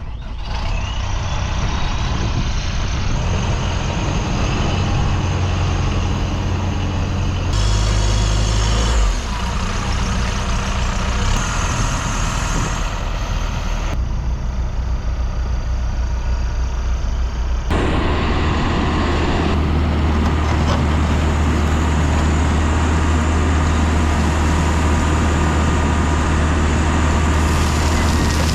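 Loader backhoe's diesel engine running steadily, changing abruptly several times.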